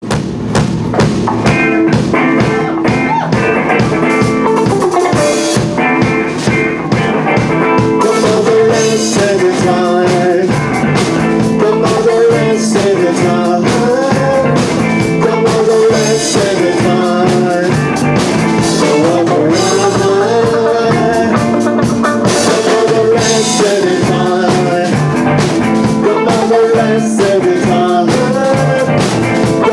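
Rock band playing live: electric guitars, bass and a drum kit keeping a steady beat, with a male lead singer singing the melody over them.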